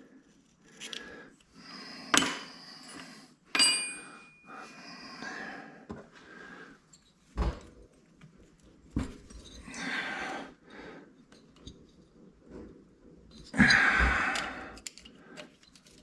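Metal tools and engine parts on a Harley-Davidson Twin Cam engine clinking and knocking as the pushrod tubes are worked out. A short metallic ring comes about three and a half seconds in, and a longer, louder rattle near the end.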